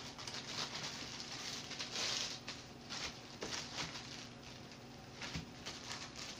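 Plastic deli packaging crinkling and rustling in irregular bursts as it is handled with plastic-gloved hands, loudest about two seconds in.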